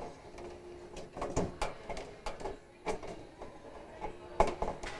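Metal mesh grease filter being pushed and clicked back into the underside of a stainless steel cooker hood: a series of sharp metallic clicks and clatters, the loudest about four and a half seconds in.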